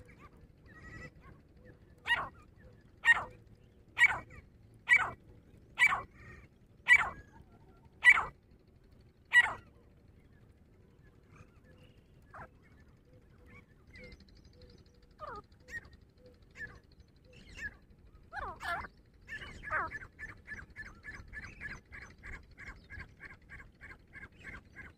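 Grey francolin calling: eight loud, sharp calls about a second apart, then fainter scattered calls. Near the end comes a fast run of short notes, about three or four a second.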